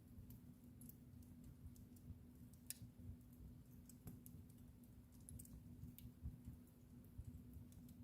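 Wood fire in a fireplace crackling softly: scattered sharp pops about once or twice a second, one louder snap a little under three seconds in, over the low rumble of the burning logs.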